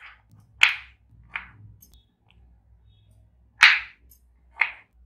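Kitchen knife cutting through baby corn cobs and knocking on a plastic chopping board: about five sharp chops at uneven intervals, the loudest just over half a second in and again about three and a half seconds in.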